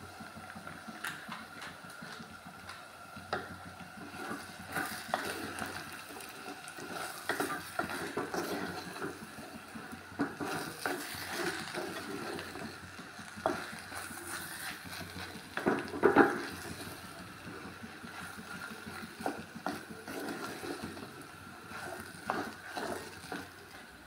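A spoon stirring and mashing potato masala filling in a clay pot: irregular scrapes and knocks against the pot, loudest about sixteen seconds in.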